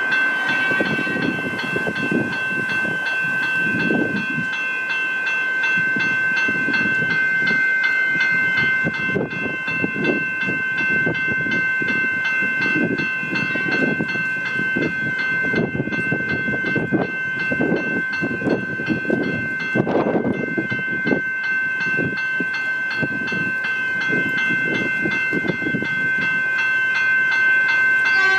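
Level crossing warning bells ringing steadily while a train passes over the crossing, its wheels clattering on the rails.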